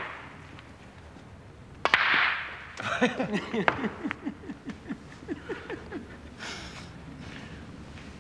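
Snooker balls on a cloth table: a sharp crack of ball striking ball about two seconds in, with a brief clatter after it. It is followed by a run of short sounds that fall in pitch, several a second, for about three seconds.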